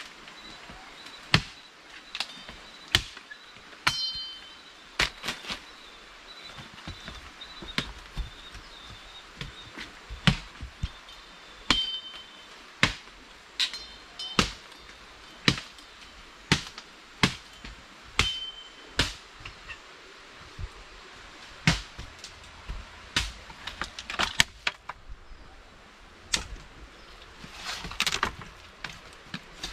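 Machete chopping wood: sharp strikes at about one a second, many with a short metallic ring from the blade, pausing briefly near the end.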